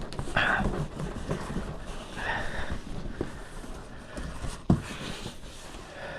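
Large cardboard box being handled and turned over: cardboard scraping and rustling in short bouts, with a sharp knock a little before five seconds in.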